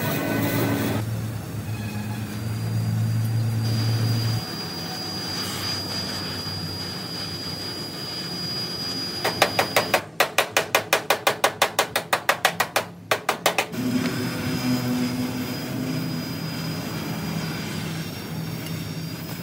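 Rapid, even hammering, about five sharp knocks a second for roughly four seconds in the middle, over a steady workshop hum.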